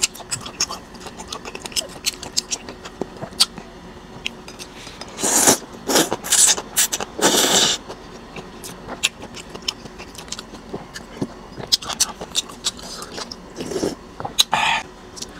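Close-up eating sounds of a bowl of noodle soup: wet chewing with many small mouth clicks, three longer slurps of noodles and broth around the middle, and a sip of broth from a spoon near the end.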